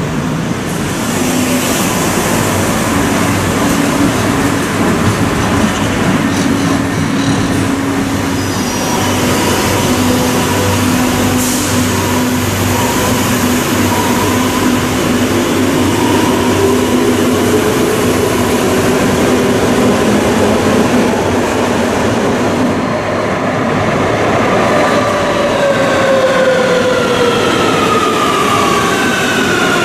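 Madrid Metro train running through an underground station: a steady rumble of wheels on rail. Over the last several seconds several whining tones from the traction motors rise together in pitch as the train picks up speed.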